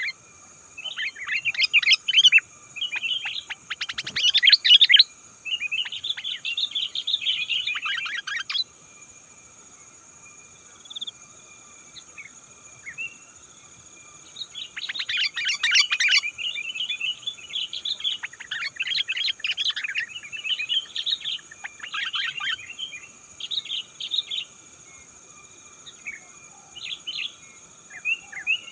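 Sooty-headed bulbul singing bursts of quick, chirpy phrases: one long run of song for the first eight seconds or so, a pause with a few single notes, then another run of about ten seconds, and scattered calls after it. Faint steady high-pitched tones run underneath.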